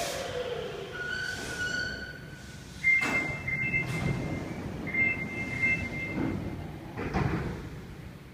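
Sapporo Namboku Line subway train coming to a halt at the platform, its falling motor whine dying away. Then an electronic two-note door chime sounds twice, about three and five seconds in, followed by a brief rush of sliding doors near the end.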